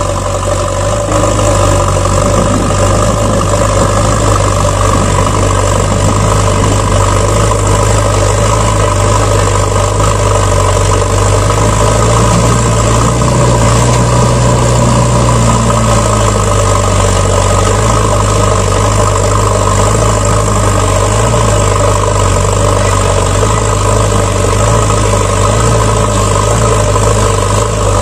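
Vehicle engine idling steadily, an even low hum that swells slightly about halfway through.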